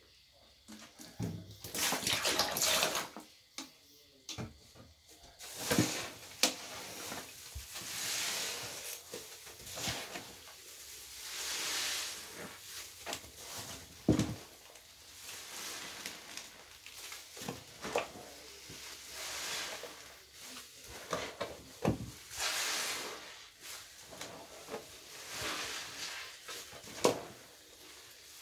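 Liquid cleaner poured from a bottle into a metal tub of sponges near the start, then wet sponges squeezed and kneaded by hand in soapy water, squelching and sloshing in swells every couple of seconds.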